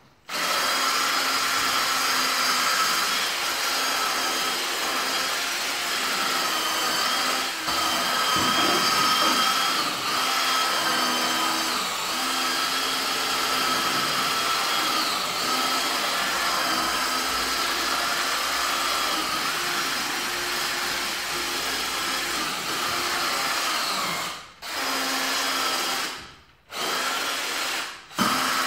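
A handheld electric power tool running steadily with a whining motor tone while stair carpet is worked on. Near the end it cuts out and restarts three times in quick succession.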